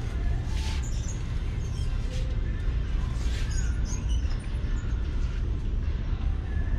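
Shopping cart wheels rolling over a hard store floor: a steady low rumble, with a few faint high squeaks.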